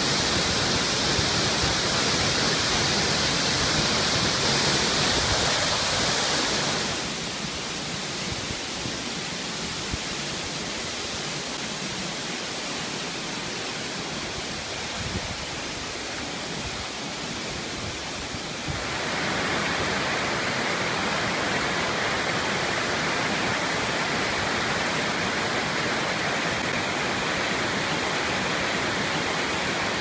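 Steady rushing of falling water from a rainforest waterfall. About seven seconds in it gives way to a quieter stream running over rocks, and about nineteen seconds in the rushing turns louder again.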